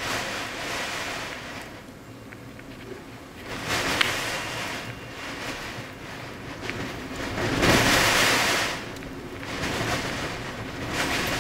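Blizzard wind blowing in gusts, surging and easing several times, with the strongest gust about eight seconds in. A few faint sharp ticks sound in the gusts.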